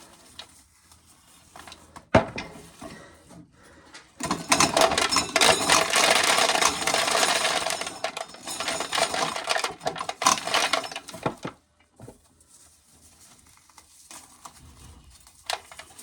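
Corn sheller clattering as ears of corn are run through it, starting about four seconds in and lasting some seven seconds, after a single knock about two seconds in.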